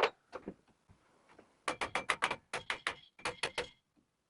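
A rusty bicycle quill stem being knocked loose in its headset: one sharp knock, then a quick run of about fifteen sharp metallic taps in three bunches with a slight ring.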